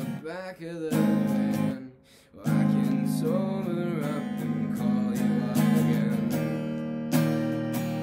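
Stratocaster-style electric guitar strummed in a steady chord rhythm, with a brief break about two seconds in.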